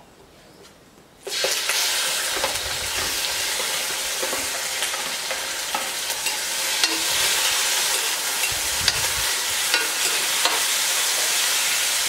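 Raw shrimp hitting a hot metal pot over a wood fire start sizzling suddenly about a second in and keep sizzling steadily as they are parched to cook off their water, with a metal spoon clicking against the pot as they are stirred.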